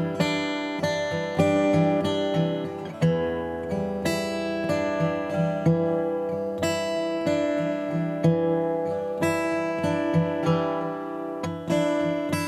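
Background music: strummed and plucked acoustic guitar with a steady pulse.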